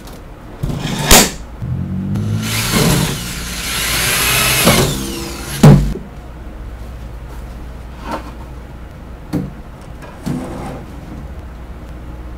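Screw gun running with a whine that rises and falls for a few seconds, between sharp knocks of shelf panels being set in place: a loud knock about a second in, another near six seconds, and a few lighter knocks after.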